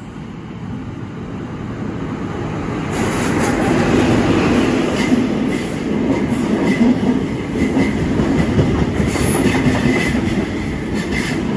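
An NSW TrainLink XPT diesel express passenger train approaches and passes through at speed. The noise builds over the first few seconds as the leading power car arrives, then holds as the stainless-steel carriages rush past with a steady sound of wheels on rail.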